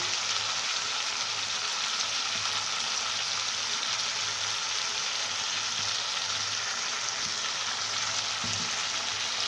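Sliced onion, capsicum and tomato with sauces frying in oil in a pan: a steady, even sizzle.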